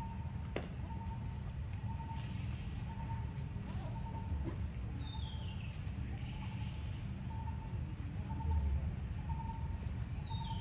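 Outdoor daytime ambience: a steady high insect drone and a short single note repeating about every two-thirds of a second, with a bird's falling stepped call about five seconds in and again near the end, over a low rumble.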